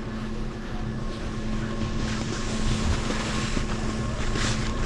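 Wind buffeting the microphone as a low, uneven rumble, over a steady mechanical hum.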